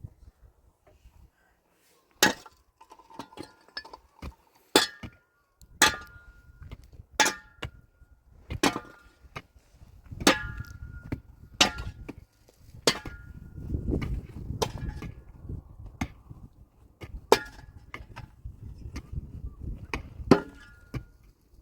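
Hammer blows struck at an even pace, about one every second and a half, each with a short ringing clink, as when driving a nail or stake while building a shelter.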